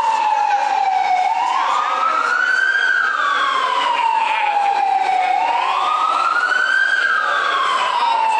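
Emergency siren wailing in a slow rise and fall, two full cycles, each rising over about a second and falling away over about three seconds.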